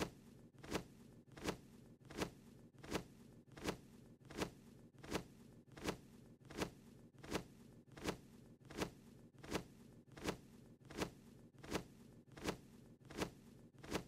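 Faint cartoon wing-flap sound effect: a short swish that repeats evenly about every three quarters of a second, over a faint low hum.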